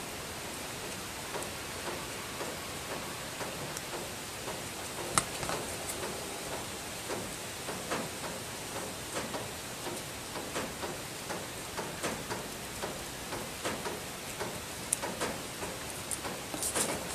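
Scissors snipping through paper in a run of small cuts, roughly one or two short clicks a second, with one sharper click about five seconds in. Under it, a steady hiss of wind on the microphone.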